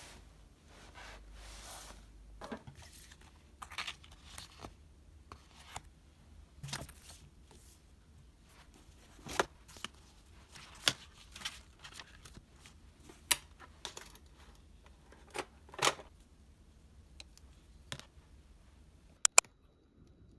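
Rustles, soft knocks and clicks as a laptop and spiral notebooks are handled and slid into a bag, with a couple of sharper clicks near the end.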